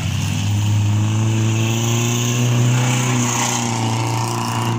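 Demolition-derby car's engine running hard at high revs as the car drives by, one steady engine note that climbs slightly in pitch and then eases off.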